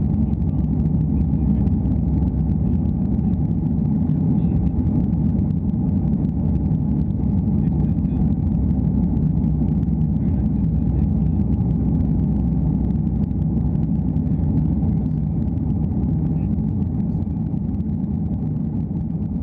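Airliner cabin noise in flight: a steady low rumble of the jet engines and air rushing past the fuselage, heard through the window seat, easing slightly near the end.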